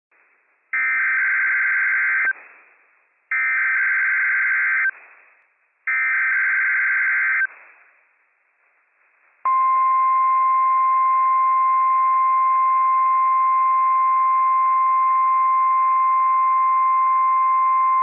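NOAA Weather Radio Required Weekly Test signal: three short, identical bursts of SAME header data tones, then after a pause the steady 1050 Hz warning alarm tone, held for about nine seconds over light radio hiss.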